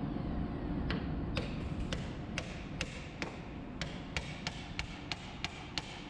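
Light hammer taps driving a part home that has been pushed in by hand part of the way: a steady run of sharp taps, about two or three a second, starting about a second in, over a steady low rumble.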